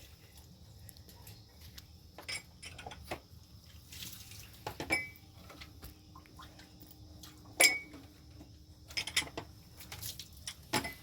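Scattered clinks and knocks of hard objects being handled, a few with a short ring. The loudest comes a little past halfway.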